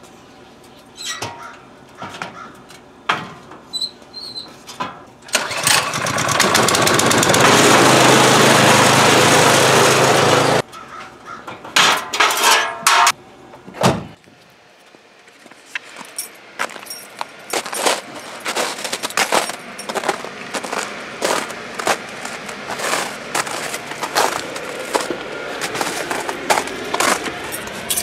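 A small engine runs loudly for about five seconds and cuts off suddenly, with scattered clicks and knocks before and many small taps and rattles after it.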